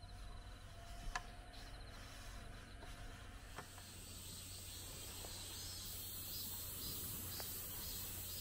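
Faint outdoor night ambience with insects chirping quietly. A sharp click comes about a second in, and a smaller one a couple of seconds later. Then a steady high hiss takes over.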